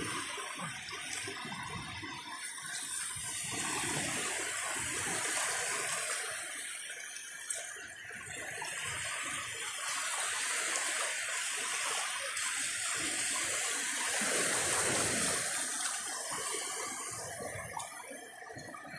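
Shallow seawater sloshing and splashing steadily as a person wades and reaches into it by hand, with one sharp click about seven and a half seconds in.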